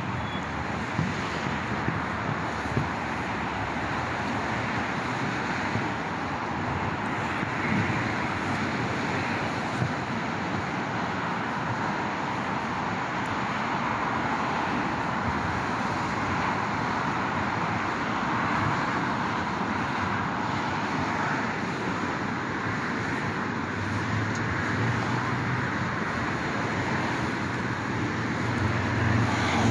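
Steady road traffic noise from a busy multi-lane road: a constant wash of car tyre and engine sound, with a deeper engine hum joining in the last few seconds.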